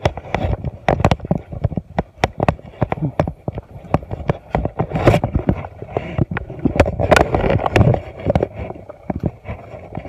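Dense, irregular rustling, brushing and knocking from walking through mangrove undergrowth with a handheld camera: palm fronds and branches brushing past, footfalls on mud and handling noise on the microphone. The loudest knocks come about halfway through and again a couple of seconds later.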